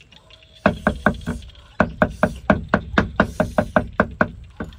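Cleaver chopping greens on a round wooden chopping board: a fast, even run of knocks, about six a second, starting about half a second in, with a brief pause partway through.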